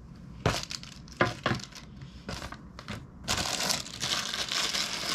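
A clear plastic accessory bag crinkling as it is handled: a few separate sharp crackles in the first three seconds, then continuous crinkling from about three seconds in.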